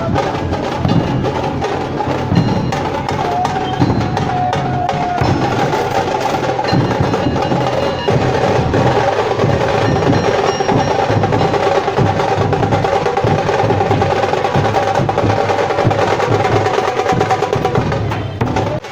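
Nashik dhol drumming: a group of large barrel dhols with tashas playing a fast, dense, unbroken rhythm.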